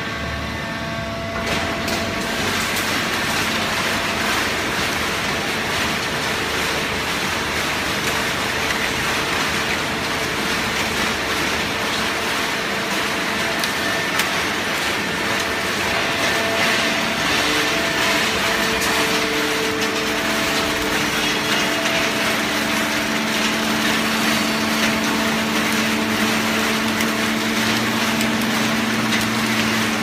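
Automatic horizontal hydraulic baling press running: a steady loud machine noise with a low hum from its motor and hydraulic pump, the hum growing stronger in the second half.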